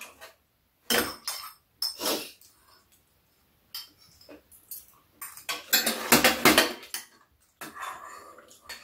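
Metal spoons and chopsticks clinking and scraping against bowls and a metal tray during a meal: scattered clinks, with a busier stretch about six seconds in.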